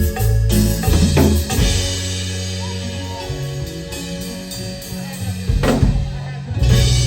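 Live band playing during a sound check: drum kit hits with sustained bass and keyboard notes underneath, with drum hits about a second in and again near the end.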